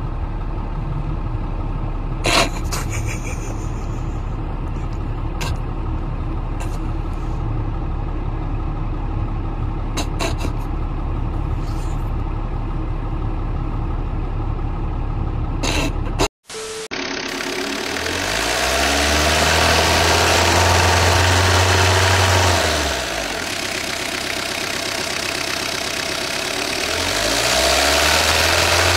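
Steady low engine rumble with a few sharp clicks. After a sudden break about 16 seconds in, a car engine revs up, holds and drops back, then revs again near the end, with a rubber glove held over its open air-intake hose.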